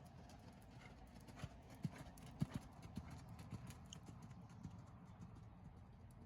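Hoofbeats of a horse moving on arena footing: a run of low, dull thuds about one and a half to four seconds in, over a faint steady background.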